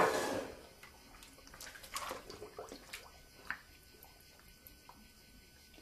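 A diver dropping into a pool of water, a splash right at the start that fades within about half a second, followed by scattered drips and small splashes.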